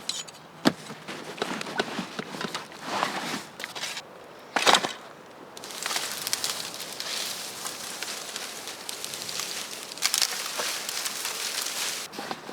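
Dry sticks and branches cracking and knocking as they are handled, with a loud crack about five seconds in, followed by a long stretch of rustling and snapping.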